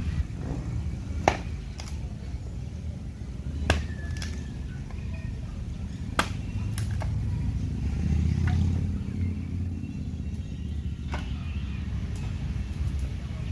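A steady low rumble that swells about two thirds of the way through, with three sharp knocks spread over the first half.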